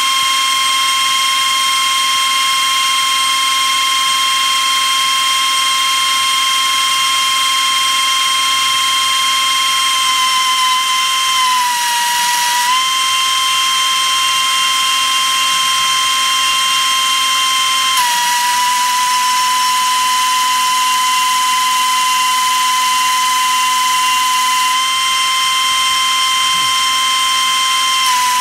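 Air-powered die grinder with a cutoff wheel running at speed: a loud, steady high whine with an air hiss. Its pitch sags briefly about twelve seconds in and drops slightly again at about eighteen seconds.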